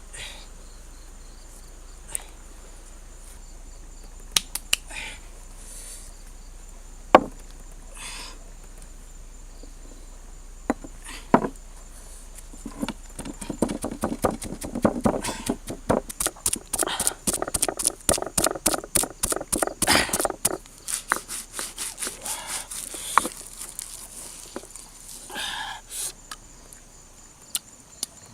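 A few scattered knocks, then a long run of rapid chopping strokes, several a second, over a steady high insect drone.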